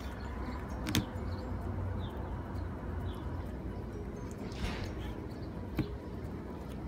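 Snap-on plastic lid being worked off a small deli cup of homemade slime, with a sharp click about a second in, then fingers poking into the soft slime.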